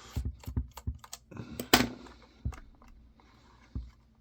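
Irregular clicks and knocks of a screwdriver and small parts on the plastic housing of an old camcorder being taken apart, with one sharper knock a little under two seconds in.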